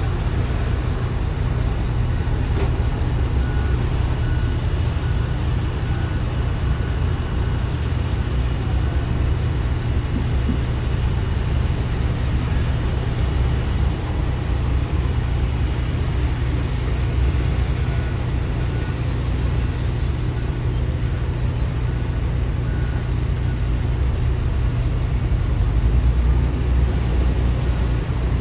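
Diesel engines of heavy quarry machinery running with a steady low rumble, swelling slightly near the end.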